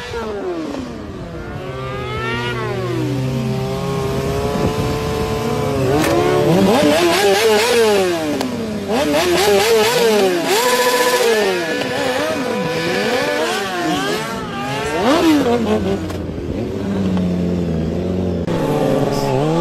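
Sport motorcycle engines revving up and down again and again. From about six seconds in, several engines run at once, their pitches rising and falling across each other, and they ease off near the end.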